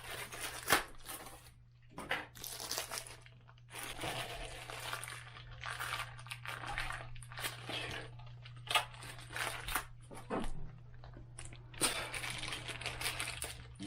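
Irregular crinkling, rustling and scraping from items being handled close by, with a few sharp clicks, over a steady low hum.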